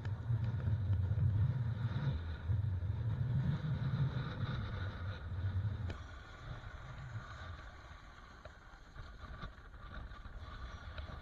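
Wind rumbling on the action camera's microphone and a snowboard running over snow while riding downhill. It is heavy for the first six seconds and then eases to a quieter hiss.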